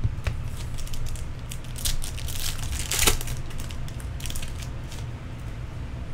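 A foil trading card pack wrapper being crinkled and torn open by hand: scattered crackles and rustles, with the loudest rip about three seconds in.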